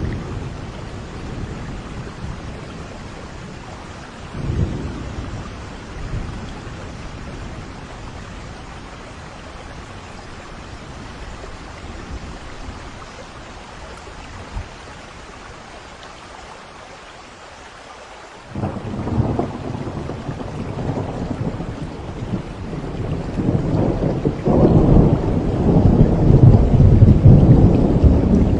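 Steady rain with low thunder rumbling. About two-thirds of the way in, a long roll of thunder breaks in suddenly and builds, loudest near the end.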